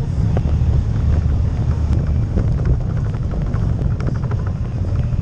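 CFMOTO CForce ATV engine running steadily while riding a rough dirt trail, with a deep drone and many small clicks and rattles from the machine over stony ground.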